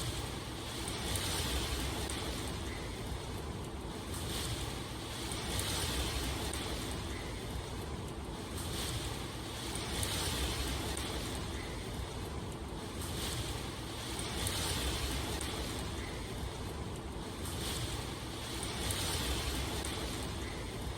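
Steady rain noise: a dense even hiss that swells and eases every couple of seconds.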